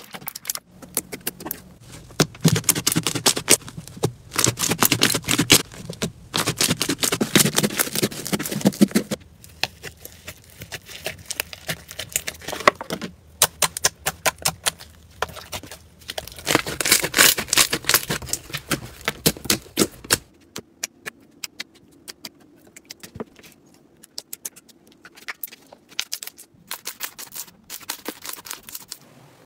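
Hands squeezing, poking and pressing slime, making dense wet crackling and popping. It comes in bouts, loudest from about 2 to 9 seconds and again from about 16 to 20 seconds in, and turns to sparser, quieter clicks after about 20 seconds.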